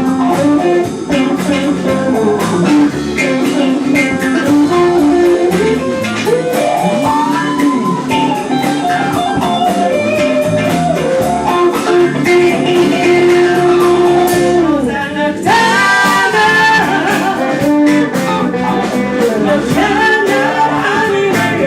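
Blues band playing a funk number: guitar and drums under a lead melody line that holds and bends long notes.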